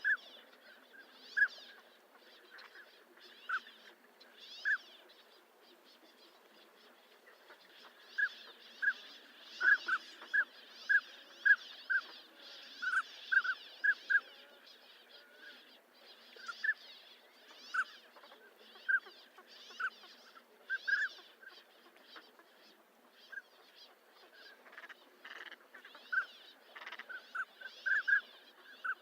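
Northern pintails calling: many short whistled notes, singly and in quick pairs or clusters, at irregular intervals, over a faint higher chatter.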